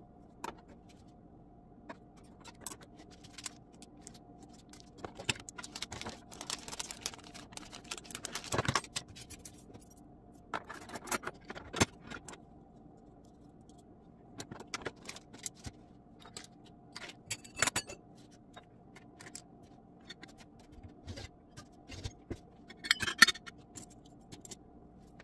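Metal kitchen utensils clinking, clattering and scraping against each other and the drawer as a utensil drawer is rearranged by hand. The clinks and scrapes come irregularly, with the loudest clatter near the end, over a faint steady hum.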